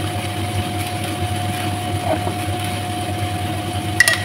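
A steady motor-like hum with a faint held tone underneath, and one sharp metallic clink near the end.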